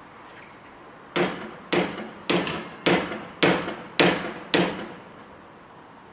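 Seven loud bangs in an even rhythm, a little under two a second, each with a short ringing tail: heavy banging at the back of a van.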